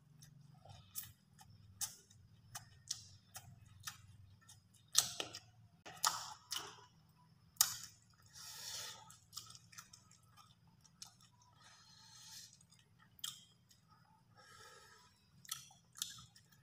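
A person chewing a mouthful of rice and grilled food close to the microphone, making irregular wet mouth clicks and smacks. The loudest come about five to eight seconds in.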